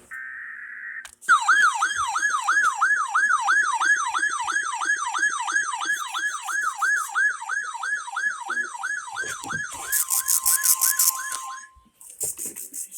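Emergency Alert System tones for a NOAA Weather Radio required weekly test. A brief data-burst tone plays first. Then a siren-like alert tone falls in pitch over and over, about two and a half times a second. Near the end a steady tone and rapid high beeps join in, and all the tones cut off together.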